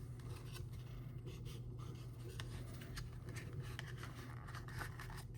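Faint scraping and rubbing with scattered light clicks as a lock pick is slid out of its packaging by hand, over a steady low hum.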